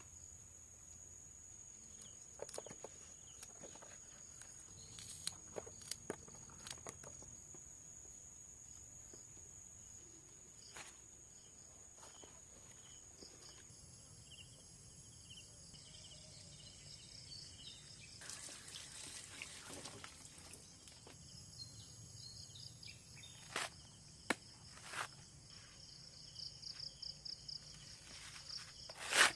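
Insects trilling steadily at a high pitch, with a fast pulsing chirp near the end, over scattered light knocks and a brief rustle in the middle.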